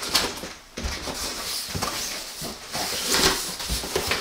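Flaps of a large cardboard shipping box being folded open, scraping and rustling in a string of short bursts, loudest a little over three seconds in.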